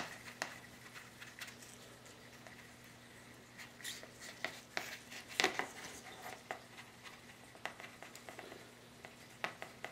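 A small stick tapping and scraping in a well of a plastic mixing tray as two-part epoxy is stirred: faint, irregular clicks, sparser at first and busier in the second half. A steady low hum runs underneath.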